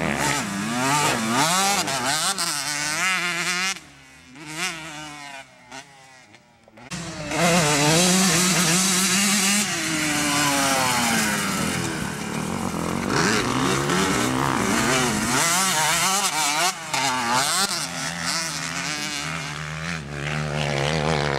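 Honda CR125R two-stroke motocross bike revving up and down as it rides the track, its pitch rising and falling with each throttle change and shift. It drops away for a few seconds near the middle, then comes back loud.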